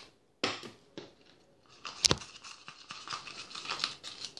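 Handling noise from a plastic tub of bicarbonate of soda, with a sharp knock about half a second in. From about two seconds in, steady scratchy scraping with frequent clicks as the powder is worked into glue and paint in a plastic bowl.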